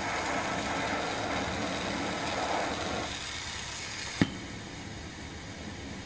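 Glassworking bench torch burning with a steady rushing noise that drops a little after about three seconds. A single sharp click a little past four seconds.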